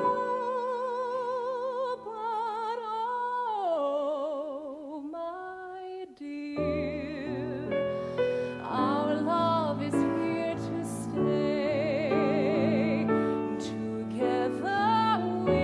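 A woman sings long held notes with a wide vibrato over grand piano accompaniment. About six seconds in the piano thins out for a moment, then comes back fuller with low bass notes under the voice.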